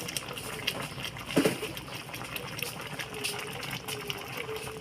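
Chicken curry in coconut milk simmering, with small bubbles popping at the surface. There is one short, louder thump about a second and a half in.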